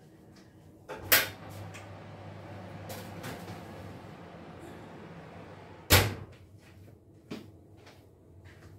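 Oven door opened with a sharp click about a second in, a steady low hum and a light clatter as the baking tray goes onto the shelf, then the door shut with a loud clunk about six seconds in, followed by a lighter knock.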